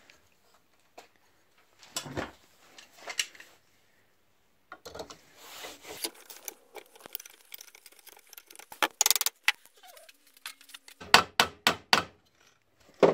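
Metal tools clinking and knocking on the pulley and pulley nut of a Lucas dynamo held in a vice, as a ring spanner and locking pliers work the nut loose. A few scattered sharp knocks and a brief scrape, then a quick run of about five loud knocks a little after the middle.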